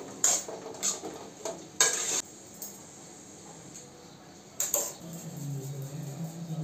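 Stainless steel plates, lids and pans clinking and clattering as they are handled at the stove: about five sharp metal knocks in the first five seconds, one near two seconds in ringing a little longer.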